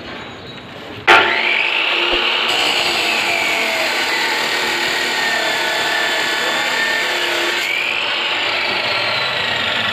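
Abrasive chop saw (cut-off saw) starting up abruptly about a second in and cutting through a steel reinforcing bar: a steady high whine over a grinding hiss. The whine sags a little while the disc bites into the rod and rises again near the end as the load comes off.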